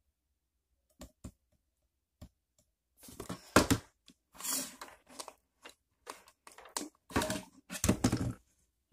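A small digital camera handled in the hand: a few light clicks in the first couple of seconds, then repeated bursts of rustling and knocking handling noise.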